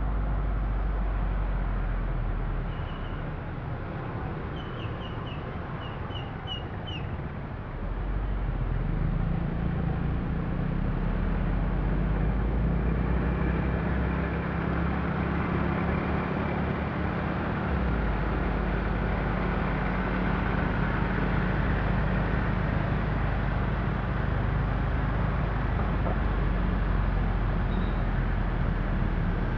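Steady low rumble of engines and tyres from a moving vehicle in motorbike and car traffic, rising to a louder, steady hum about eight seconds in. A bird chirps a few times in the first seven seconds.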